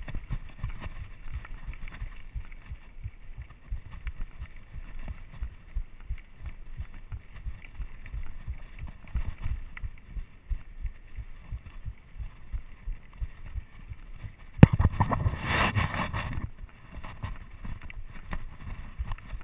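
Mountain bike rolling down a rough dirt-and-gravel track, heard through a handlebar-mounted action camera: a steady run of low thumps and rattles as the wheels hit bumps. Near the end there is a sharp knock, then about two seconds of louder rushing noise.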